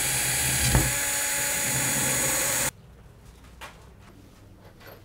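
Cordless drill with a fine metal bit running at full speed, drilling through a short piece of 15 mm aluminium tube, then stopping abruptly about two and a half seconds in. A few faint clicks follow.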